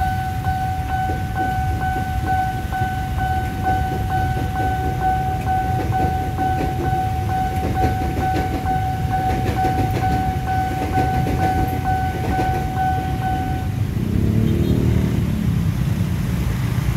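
Level-crossing warning alarm ringing in a fast, steady pulse over the rumble of a KRL Commuter Line electric train passing and waiting motorbikes. The alarm cuts off a few seconds before the end as the barrier lifts, and motorbike engines rev up.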